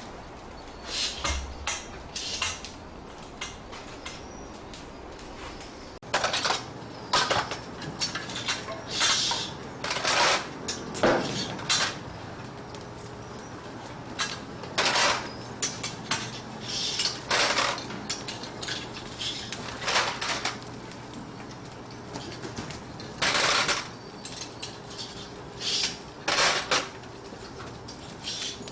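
Irregular clattering and clinking of dishes and metal utensils being handled, with a low steady hum starting about six seconds in.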